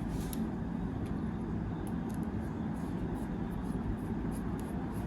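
Faint small clicks of a small screwdriver driving tiny screws back into a watch's side bezel, over a steady low background rumble.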